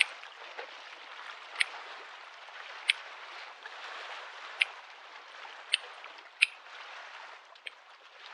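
Small waves lapping at a lake shore: a steady wash of water with short, sharp slaps about every second or so.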